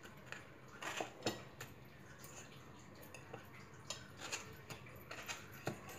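Steel fork pricking peeled potatoes on a steel plate: faint, irregular metal clicks and taps, about ten of them scattered through the stretch.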